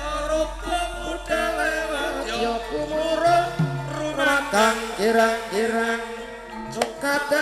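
Live Javanese gamelan music: a high, wavering melody slides over steady struck metallophone notes, with a low hum underneath.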